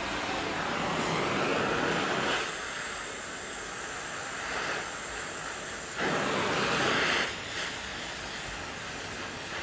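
Acetylene torch flame hissing steadily while it heats a steel handlebar around a seized bolt stud. Twice the hiss swells louder for a second or two, then drops back abruptly.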